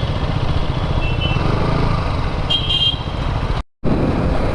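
Motorcycle riding through traffic, a steady engine and road rumble. Short high horn beeps sound about a second in and again between two and three seconds in. The audio drops out for a moment near the end.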